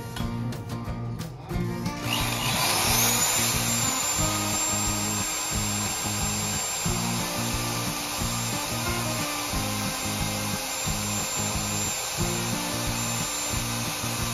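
Corded electric drill spinning up about two seconds in, running at speed with a steady high whine, and beginning to wind down at the very end. Background music with a steady beat runs underneath throughout.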